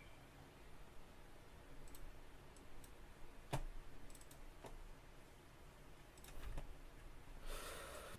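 Scattered faint clicks of a computer mouse, about half a dozen irregularly spaced, with a soft hiss near the end.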